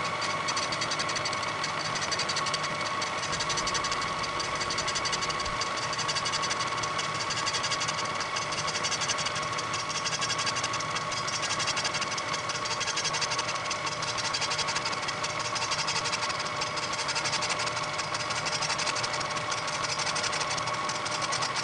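Bridgeport milling machine running a fly cutter across a cast-iron drill press table, played back sped up: a steady whine with a rapid, even ticking from the interrupted cut. The cutter bites only on the back of its swing, a sign that the mill head is out of tram.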